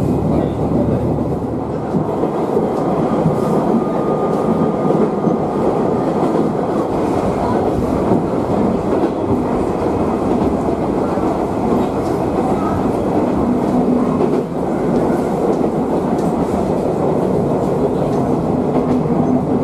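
Moka Railway diesel railcar running at speed, heard from inside the passenger cabin: a steady rumble of engine and wheels on the rails.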